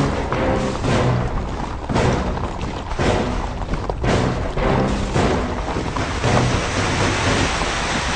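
Dramatic film score with a heavy drum stroke about once a second and brief low chords, over the steady rushing rumble of a mounted army on the move; the rumble grows and takes over from about two-thirds of the way in.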